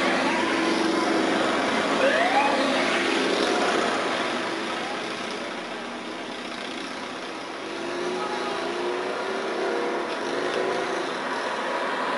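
Police motorcycles passing close with their engines running, with a few short rising siren whoops in the first seconds; then the engine sound fades a little and passing street traffic follows.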